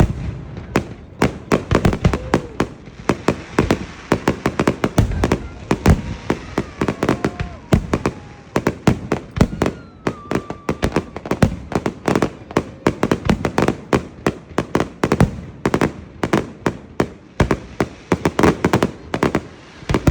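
Fireworks going off in a rapid, dense run of bangs and crackles, several a second.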